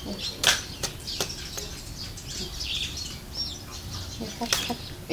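Sharp snaps and crackles of a fresh banana leaf being handled and cut with a knife, several in the first second and a half and another near the end, with birds chirping in the background.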